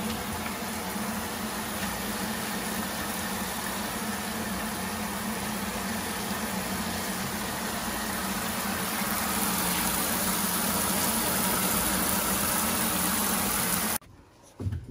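A steady machine-like hum with a hiss over it, cutting off suddenly near the end.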